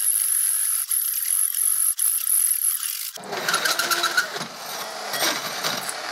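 Hole saw with a pilot drill cutting through a steel plate under a milling machine spindle: a steady high-pitched hiss with a thin high whine. About three seconds in the sound turns abruptly fuller and rougher, with a brief squeal, as the saw breaks through the plate.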